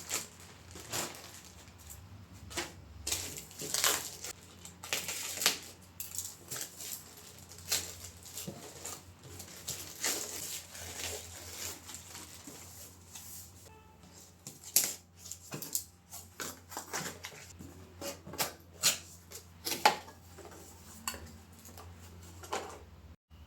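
Irregular light clicks, taps and rustles of small objects being handled, set down and moved, some several a second and some spaced out, over a faint steady low hum.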